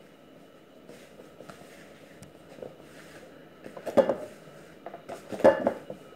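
Pizza dough being kneaded by hand on a floured metal worktable: soft pressing and rubbing, with two louder thumps of the dough against the table, about four and five and a half seconds in.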